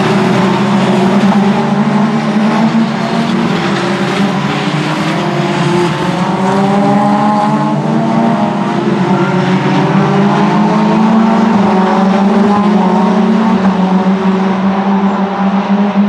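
Several Mitjet race cars with Renault 2.0-litre four-cylinder engines driving past at speed. Their loud engine notes overlap, rising and falling in pitch as they accelerate and go by.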